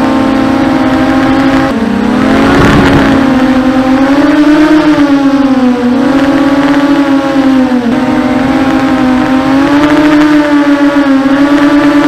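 250-size quadcopter's electric motors and propellers whining, the pitch swinging up and down every second or two as the throttle changes. A brief rush of noise comes in about two and a half seconds in.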